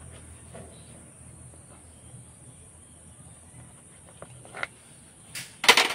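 Knife slicing through soft dough on a wooden chopping board, with faint taps as the blade meets the wood, then a short, louder clatter near the end. A steady high-pitched insect drone, like crickets, runs underneath.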